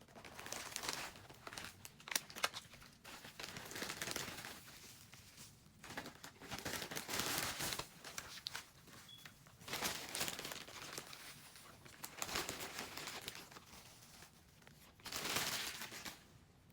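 Packaging being handled and opened, crinkling and tearing in irregular bursts with sharp crackles.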